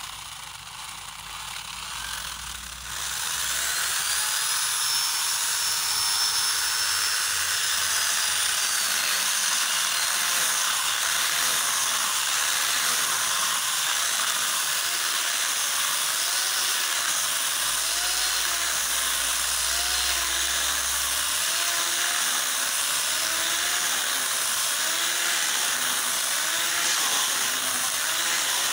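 Electric angle grinder converted into a small chainsaw with a bar-and-chain attachment, running and sawing through a log. It is quieter for the first few seconds, then from about three seconds in it runs as a loud, steady high whine and rasp of chain on wood.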